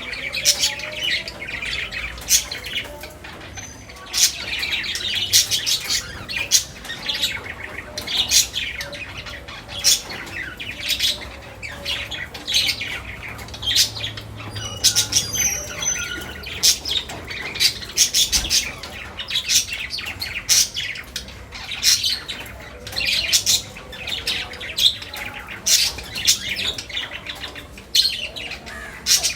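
A flock of budgerigars chattering, with many short, sharp calls overlapping without pause.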